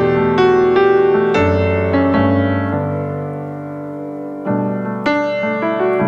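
Solo piano playing the slow introduction to a song: chords are struck and left to ring and fade. A new phrase comes in about four and a half seconds in.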